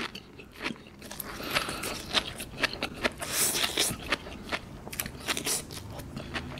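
Close-up mouth sounds of chewing a mouthful of sea grapes (latok): many small, crisp, wet clicks and crackles as the little beads are bitten and burst.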